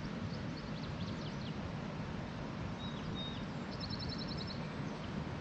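Natural outdoor ambience: a steady low rush of background noise with a few faint songbird calls on top. These include a short held whistle about midway and a quick high trill of about eight notes soon after.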